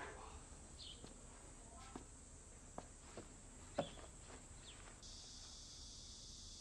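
Quiet room tone with a few soft knocks and footsteps, the loudest a little under four seconds in, as a man steps up to a table and leans his hands on it. About five seconds in, a steady high chirring like crickets starts up in the background.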